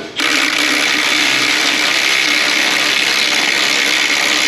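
Cordless quarter-inch-drive impact gun running steadily as it hammers on an exhaust flange nut. The small gun is not drawing the nut tight: it vibrates the nut loose instead.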